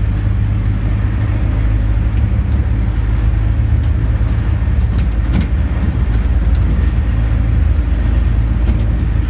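Land train running along the road, heard from on board: a steady low engine drone with road rumble. A few light clicks or rattles come about five seconds in.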